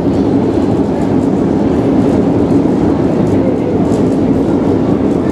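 Long metro escalator running, a steady loud rumble of the machinery and moving steps with faint clicks.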